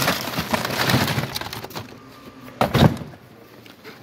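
Plastic display cases and packaged model cars crackling and clattering against one another as they are rummaged through in a cardboard box. A single louder knock comes a little under three seconds in.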